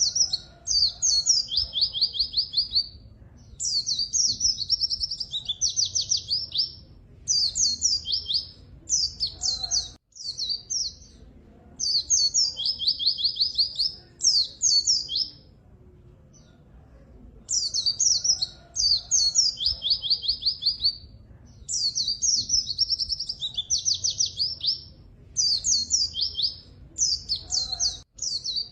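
White-eye (pleci) singing vigorously: high, fast twittering phrases a second or two long, many ending in a quick even trill, repeated over and over with short pauses between.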